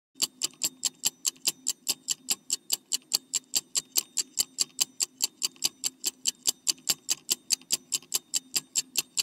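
Clock-ticking sound effect of a quiz countdown timer: sharp, evenly spaced ticks about four and a half times a second, starting a moment after silence.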